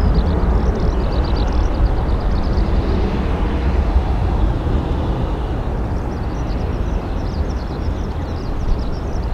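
Boeing 737-800's CFM56-7B turbofan engines give a steady jet rumble as the airliner climbs away after takeoff, slowly fading as it draws off. Series of short high chirps sound over it near the start and again in the last few seconds.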